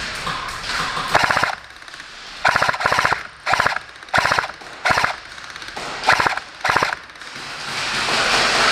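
Airsoft electric guns firing about eight short bursts of rapid shots, one after another at intervals of about half a second to a second, the pellets cycling in fast clicking strings.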